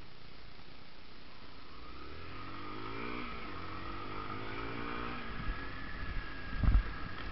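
Motorcycle engine accelerating on the move, its note rising about two seconds in and then holding, with a loud low thump near the end.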